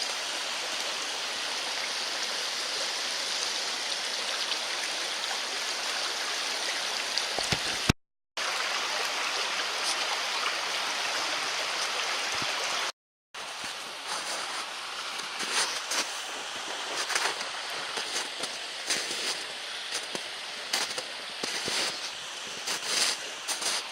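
Rushing stream water, a steady even wash, cut off abruptly twice. After the second cut the water is quieter and scattered short clicks and knocks sound over it.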